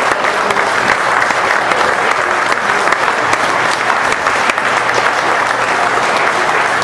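Audience applauding steadily: many people clapping at once, with no break.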